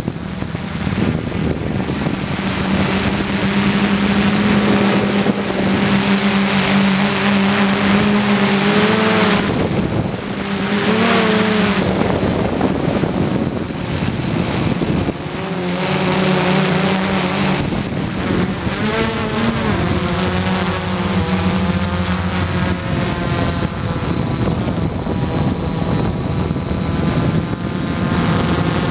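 Gaui 330X quadcopter's four brushless motors and propellers whining in flight, heard close up from the aircraft itself. Several steady tones rise and fall a few times as the motors speed up and slow down.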